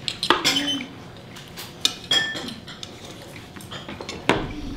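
Steel knife and fork clicking and scraping against a wooden cutting board as a steak is cut, with a few sharp knocks and one brief ringing clink about two seconds in.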